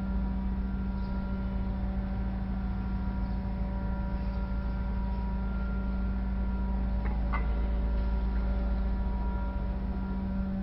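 Steady machine hum with a low rumble and several constant tones, broken by a brief click or two about seven seconds in.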